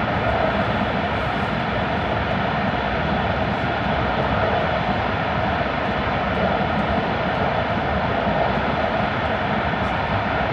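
Steady running noise of an E5 series Shinkansen travelling at speed through the Seikan Tunnel, heard inside the passenger car: an even, unbroken rumble of wheels, motors and air in the tunnel.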